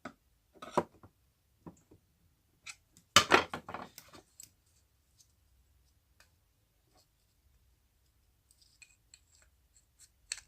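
Metal tool clicking and scraping on the wall fan motor's bush housing as its two retaining nuts are tightened: a few single clicks, a loud cluster about three seconds in, then scattered light ticks near the end.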